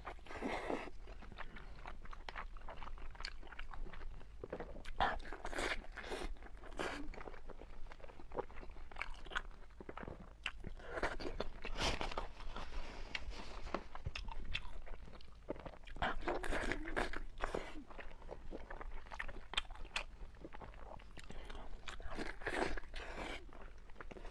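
Biting and chewing of pork intestine bundles: many short, sharp mouth clicks coming in clusters every couple of seconds.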